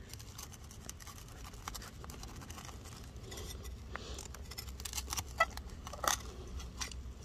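Serrated hand digger cutting into dry soil and leaf litter: faint scraping and crunching with many small clicks, and a few sharper snaps about five and six seconds in.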